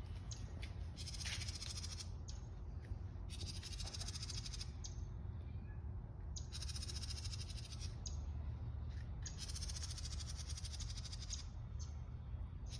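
Birds calling over and over, each call a rapid, buzzy rattle lasting about a second or two, with short pauses between, over a steady low rumble.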